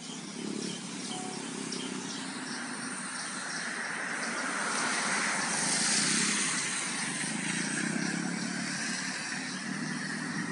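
Street traffic noise picked up by a Redmi 4X phone's built-in microphone, thin with little bass. A passing vehicle swells to its loudest about six seconds in and then fades back into the steady traffic hiss.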